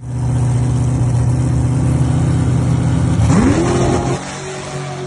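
Race car engine running steadily, then revving up sharply about three seconds in and holding the higher pitch briefly before the sound drops in level.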